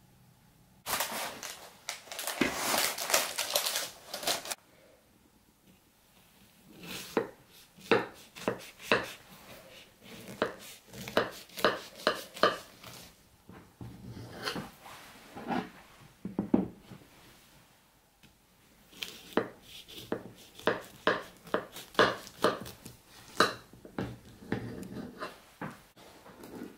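Knife cutting through the crisp, crumbly shortbread topping and crust of a baked blackcurrant cheesecake tart on a plate, in a run of short crunches, several a second, with a pause in the middle. Before the cutting, a few seconds of dense rustling noise.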